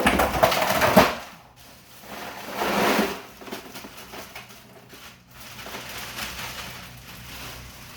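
Ice cubes dumped from a bag into a plastic bucket: a loud clattering rush lasting about a second, a second shorter burst about two seconds in, then fainter rattling.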